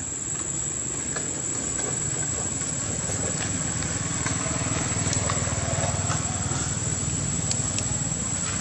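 Steady outdoor background noise: a constant low rumble under a hiss, with a thin high whine held throughout and a few faint clicks.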